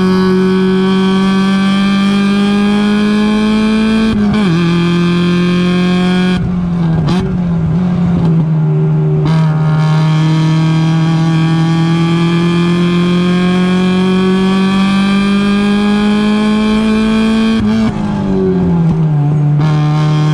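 Mazda Miata race car's four-cylinder engine heard onboard, pulling up through the revs. There is an upshift about four seconds in, then a lift with quick downshift blips around the middle, then a long steady climb in revs and another upshift near the end.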